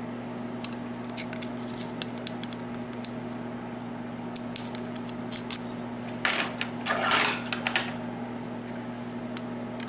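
Small metallic clicks and scrapes of a lock pick and tension wrench working the pins of a six-pin Yale rim cylinder, with two longer scrapes about six and seven seconds in.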